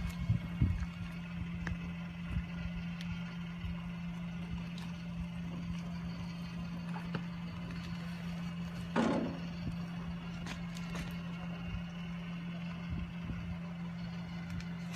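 A machine running with a steady low hum, with scattered knocks and clicks and one brief louder scrape or rustle about nine seconds in.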